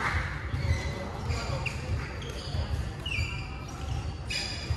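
Badminton play on a wooden sports-hall floor: repeated thudding footsteps and brief squeaks of court shoes, with a sharp racket strike near the end, all echoing in the large hall.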